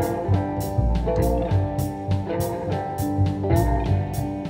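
Background music: guitar over a steady beat of about two hits a second.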